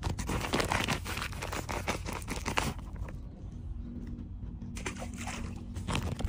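Foil bait packet crinkling and rustling as fingers work bait out of it, in busy bursts for the first three seconds and again near the end, over a faint steady low hum.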